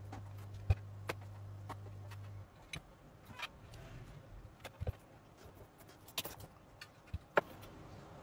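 Scattered clicks and knocks of a graphics card and its power cables being handled and plugged in on a workbench. A steady low hum underneath stops about two and a half seconds in.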